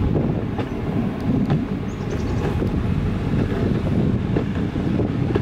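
Wind buffeting the microphone of a handheld camera outdoors: a steady low rumble.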